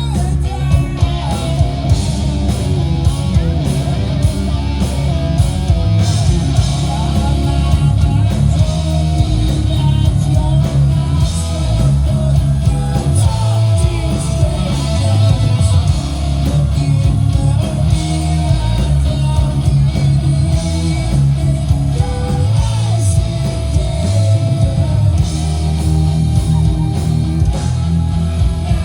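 Heavy rock band playing: electric guitar and drums over a heavy low end, with a voice singing.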